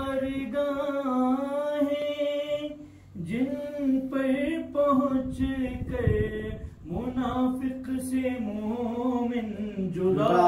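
A man singing a manqabat unaccompanied, holding long drawn-out notes in three phrases, with short breaks about three seconds in and again near seven seconds.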